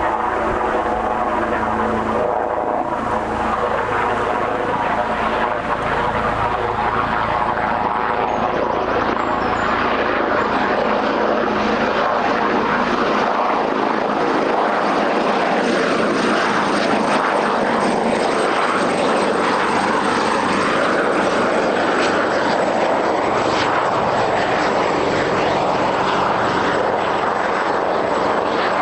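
Leonardo AW139 twin-turbine helicopter approaching and landing: a steady rotor and engine din, with a thin high turbine whine coming in about eight seconds in and holding on.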